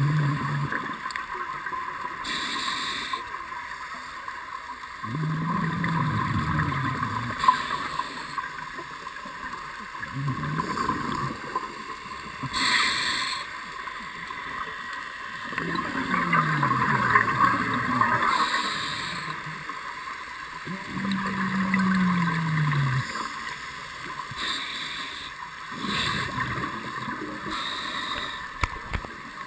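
Scuba diver breathing through a regulator, heard through the camera's underwater housing: a breath cycle with bubbling about every five seconds over a steady hiss. The uploader takes the breathing for a sign that the diver is shivering from cold.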